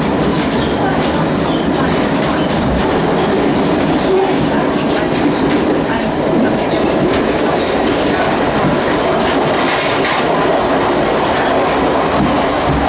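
Metropolitan line A Stock train running at speed, heard from inside the carriage: a steady rumble of wheels on the track with occasional clicks.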